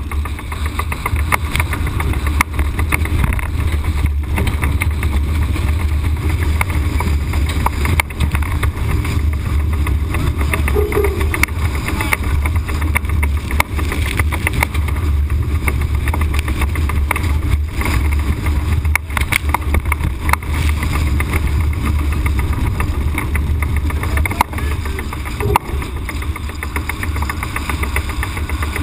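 Strong wind buffeting the microphone as a steady low rumble, over the rush and spray of water along the hull of a Farr 45 racing yacht sailing at high speed in about 30 knots of wind, with a few scattered knocks.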